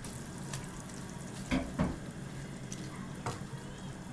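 Water running steadily from a kitchen tap into a sink, with a few light knocks of kitchenware.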